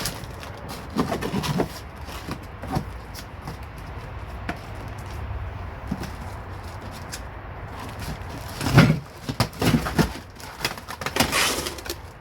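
Cardboard box being opened by hand: irregular rustling, scraping and knocking of cardboard and packing, busiest a second or so in and again in a flurry near the end, with one louder knock in that flurry.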